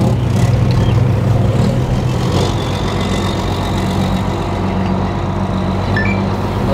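A ship's heavy engine running with a steady low drone, its low note shifting slightly about two seconds in. A faint high steady whine sits over it from about two seconds in until near the end.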